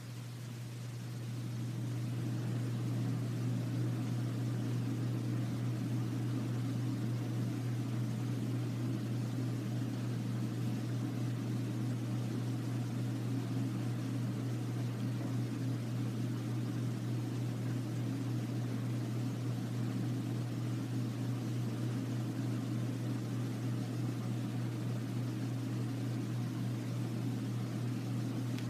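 A steady low hum that swells in over the first couple of seconds and then holds level.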